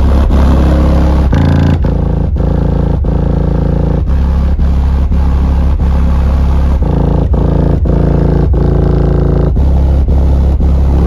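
Two Skar DDX 10-inch subwoofers playing bass-heavy music very loud from a Taramps Smart 3K bass amp. Deep sustained bass notes change pitch every second or two under a steady beat of about two hits a second. The amp is being driven hard to try to make it clip.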